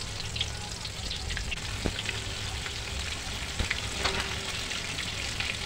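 Egg-coated chicken pieces deep-frying in hot oil in a wok: a steady sizzle with scattered crackles and a few faint clicks.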